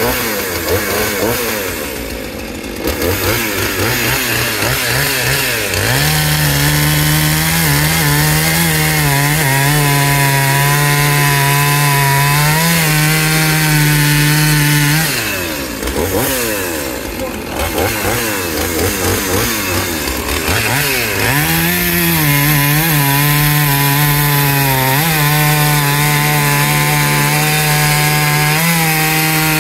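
Gas two-stroke chainsaw revving up and down, then bogging into a log at a steady, lower pitch for about nine seconds. It revs freely for a few seconds, then cuts again at the same steady pitch for about eight seconds.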